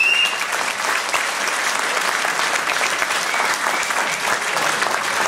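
Audience applauding steadily: many hands clapping at the end of a children's dance performance.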